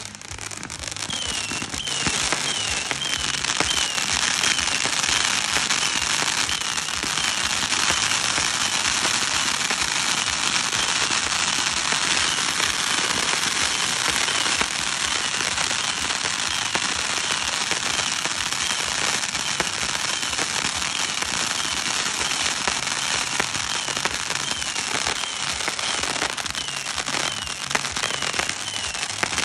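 Ground-launched fireworks spraying sparks and shooting up colored stars, a continuous dense crackling hiss packed with rapid small pops. It builds over the first couple of seconds, then holds steady.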